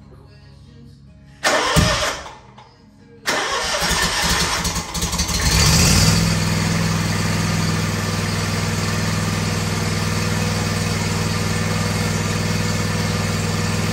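Kawasaki 850V V-twin engine of a zero-turn mower starting: a short burst of cranking, then it catches about three seconds in and settles into a steady run.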